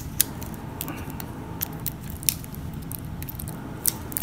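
Scattered light clicks and crinkles from hands handling a steel-bracelet G-Shock watch still wrapped in clear protective plastic film.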